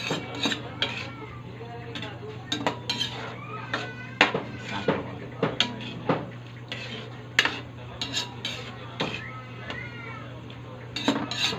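A spoon clinking and scraping against a metal wok at an irregular pace while a thick sauce is stirred, over a steady low hum.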